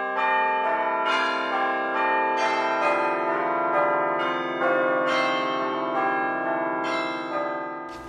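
Bells or chimes struck one after another in a slow sequence of notes, each note ringing on and overlapping the next, fading out near the end.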